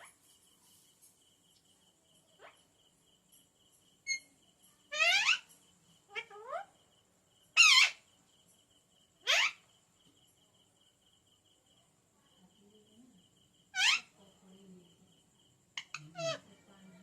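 Pet green parrot giving about six short, loud calls, each sliding quickly down in pitch, spaced a second or more apart. A faint, fast, steady chirring like a cricket runs underneath.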